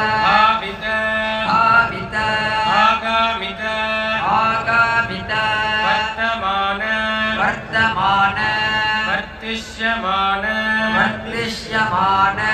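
Devotional chanting at a Mahashivratri puja: voices chant a mantra in repeated melodic phrases, each with a rising glide, over a steady low drone.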